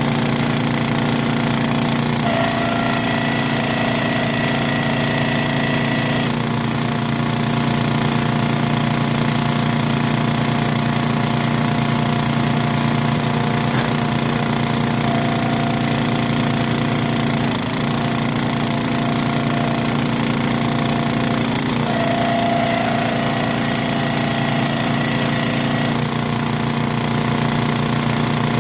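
A tractor engine running steadily at an even speed with a fast, regular pulse. A fainter higher whine changes pitch a few times.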